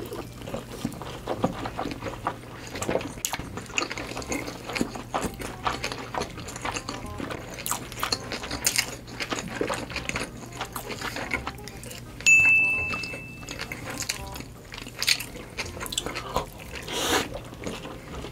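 Close-miked wet chewing and mouth smacking, many small clicks and squelches, as large one-bite mouthfuls of fried food are chewed. A short, steady high beep sounds about twelve seconds in.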